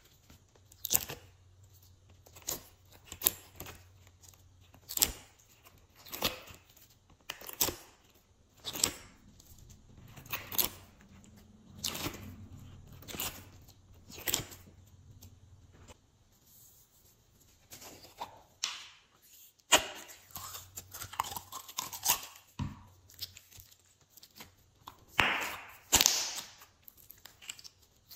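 Glossy slime being handled by hand: short sticky peeling and crackling sounds, about one a second at first, as the unicorn-shaped slime pieces come out of a plastic mold. These give way to longer stretching and squishing sounds as the slime is pulled.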